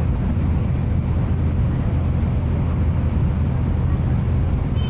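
Steady low rumble inside the cabin of a Nozomi Shinkansen super express running along the line.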